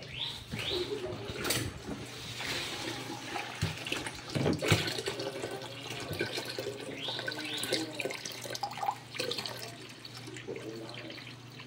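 Water pouring from a plastic jerry can in a steady stream and splashing into the liquid already in a cooler, with irregular bubbling. A single sharp knock about halfway through.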